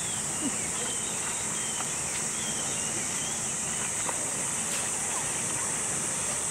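Steady rain hiss with a high, even drone above it and a few faint short chirps.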